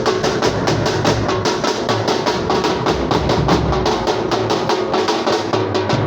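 Music with a fast, steady drumbeat of about five or six strokes a second.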